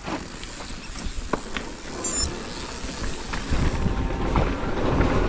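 Mountain bike riding down a dirt trail: wind buffeting the action-camera microphone and tyres rolling over dirt, with scattered sharp clicks and knocks from the bike over bumps.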